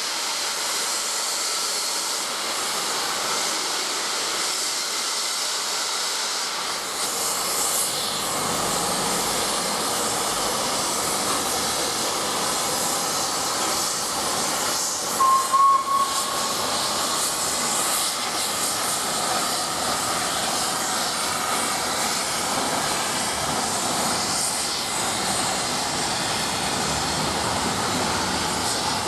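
Peppercorn A1 steam locomotive standing with steam hissing steadily. Midway through comes a brief whistle blast.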